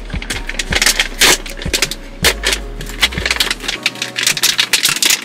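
Plastic snack packet crinkling and crackling as it is handled and torn open, a dense run of sharp crackles that stops at the end.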